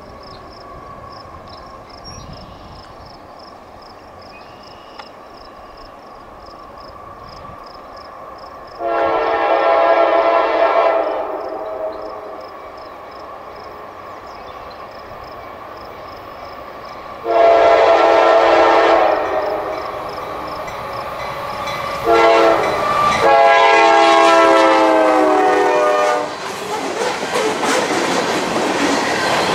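Diesel locomotive horn sounding a chord of several notes in the grade-crossing pattern: two long blasts, a short one, then a long one. Before the horn there is a faint, rapid, high ringing over a low rumble. Near the end the noise of the approaching train's wheels and engines builds up loudly.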